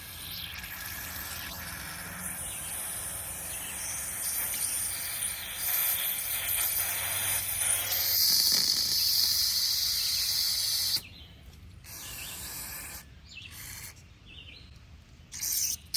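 A pressurized spray hissing steadily into a plugged carburetor fuel passage to blow it clear. It is loudest for a few seconds before cutting off suddenly, and two short bursts follow near the end.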